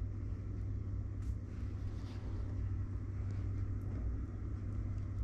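Steady low hum with faint background noise and a couple of faint ticks; no speech.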